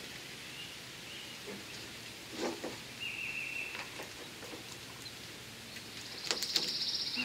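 Short, steady high bird trills, one about three seconds in and a buzzier, higher one near the end, over quiet outdoor air. Soft knocks and rustles come from a knife and gloved hands working at a skinned raccoon's neck.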